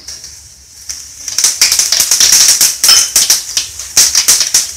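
Mustard and cumin seeds spluttering in hot oil for a tempering. It is a rapid, dense, uneven crackle that starts about a second in, once the cumin has gone in.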